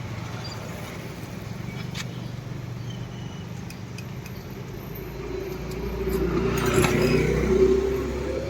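Street traffic running past: a steady low engine rumble that swells as a vehicle draws close, its engine note beginning to rise in pitch near the end.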